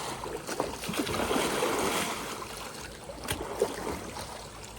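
Water splashing and churning as a kayak capsizes and is rolled back upright, loudest about a second in, with a few sharp splashes later on.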